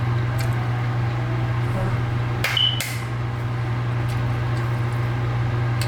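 Dishware clinking twice, with a short ring after the first clink, about two and a half seconds in, over a steady low hum.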